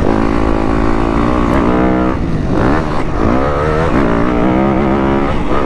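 2015 Yamaha YZ250F's single-cylinder four-stroke engine under riding, its pitch climbing and dropping several times as the throttle is opened and closed.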